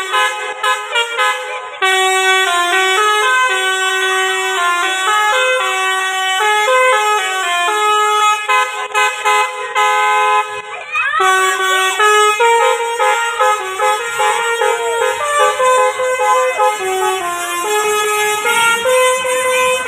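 Bus basuri 'telolet' multi-tone horn playing a melody: several horn tones sound together and step quickly from note to note. A low rumble comes in underneath about halfway through.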